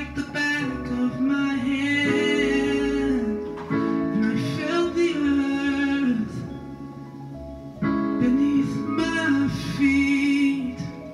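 A man singing a song in long held phrases, accompanied by acoustic guitar; the voice drops out for a moment in the second half, then comes back in.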